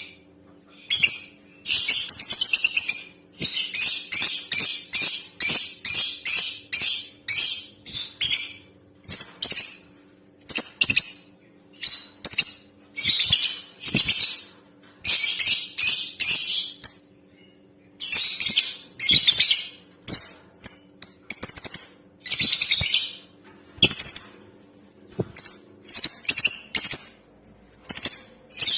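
Female lovebird calling in rapid runs of shrill, high chirps, each run lasting about a second or two with short breaks between; this is a female's call played as a lure to set male lovebirds singing. A faint steady hum runs underneath.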